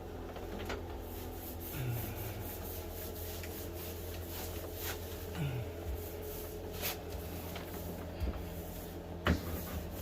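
Paintbrush strokes rubbing over a wooden door while oil-based paint goes on as a first coat, with scattered light clicks and one sharper knock about nine seconds in, over a steady low hum.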